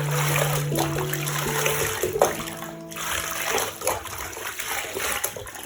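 Water running and splashing as a Persian cat is bathed, under background music holding long notes.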